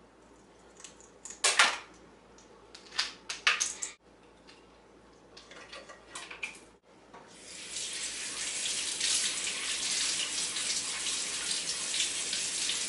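Kitchen faucet running, a steady rush of water that starts about seven seconds in. Before it come a few sharp clicks and knocks, the loudest about one and a half seconds in.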